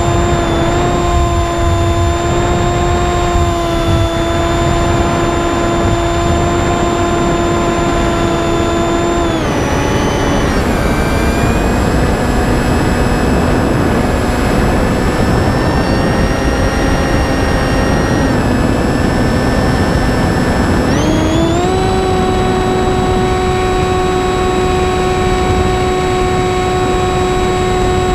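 Electric brushless motor and propeller of a Finwing Penguin FPV plane in flight, a steady whine over a rushing noise. The pitch drops about a third of the way in as the throttle is eased back, then rises again near the two-thirds mark as the throttle is opened up.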